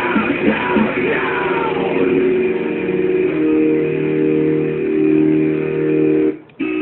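Rock music with electric guitar and a voice gliding over it in the first couple of seconds. It settles into long held chords, then breaks off abruptly near the end.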